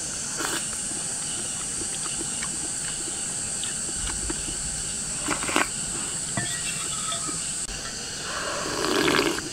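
Steady high-pitched drone of insects in the background, with a couple of small clicks of eating and a noisy slurp of broth from a ladle near the end.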